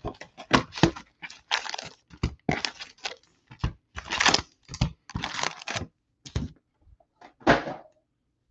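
Cardboard hobby box of baseball card packs being torn open and the wrapped packs pulled out by hand and stacked, making a run of irregular tearing, rustling and crinkling sounds that thin out near the end.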